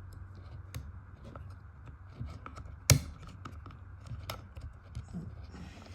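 Small clicks and taps of plastic and metal parts being handled while hooking the throttle cable and spring into a Husqvarna 372XP chainsaw's trigger handle, with one sharp, louder click about three seconds in.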